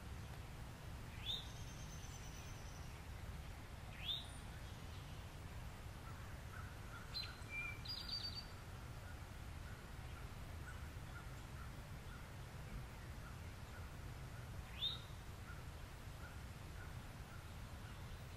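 Wild birds calling: three sharp sweeping calls spread through, a short high trill near the start and a few quick chips about midway. Under them run a faint, evenly repeated pulsing from about a third of the way in and a steady low rumble of background noise.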